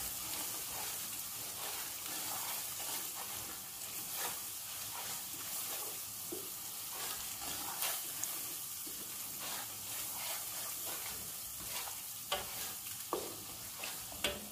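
Wooden spatula stirring and scraping a thick sauce around a large stainless steel pot, with irregular scraping strokes over a steady sizzle from the sauce cooking on the flame.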